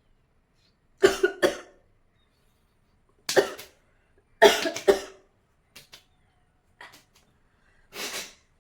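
A woman coughing in short fits, loudest in the first five seconds, brought on by snuff she has just snorted rather than by a sneeze.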